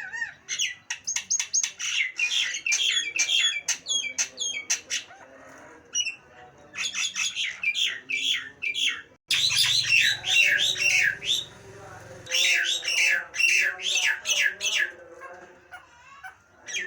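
Nias hill myna calling in rapid runs of short, loud whistled and squawking notes, in four bursts with brief pauses between them.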